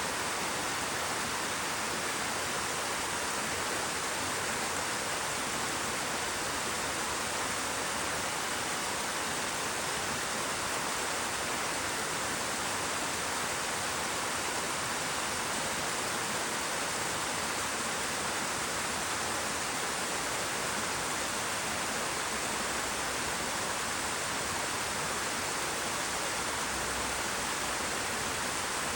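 A small waterfall cascading down in seven steps: a steady, even rush of falling water.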